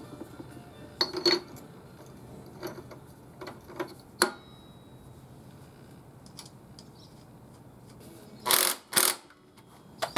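Metal tools and parts clinking and knocking as they are handled, several separate sharp clicks, then two louder short rasping bursts about half a second apart near the end.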